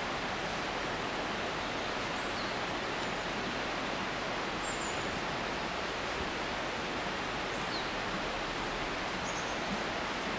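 Steady, even rushing noise of open-air ambience, with a few faint, short, high chirps scattered through it.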